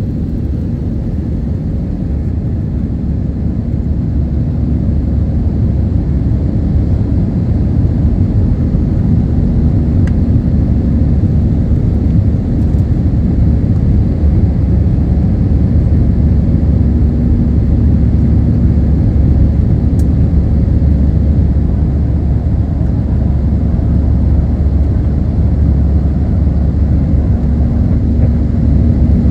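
Jet airliner cabin noise during the climb after takeoff: the steady low roar of the engines and airflow over the wing. A hum rises out of the roar at times.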